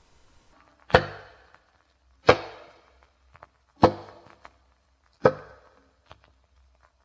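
Fossil mammoth scapula (shoulder blade) struck four times, about one and a half seconds apart. Each strike is a sharp knock that rings briefly with a steady pitch and fades away.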